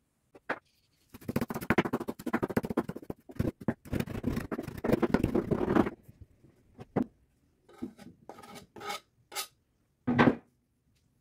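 Chef's knife chopping fresh parsley on a wooden cutting board: a fast, continuous run of chops for about five seconds, then a few single chops spaced apart. Near the end, a brief scrape as the chopped parsley is pushed off the blade into a glass bowl.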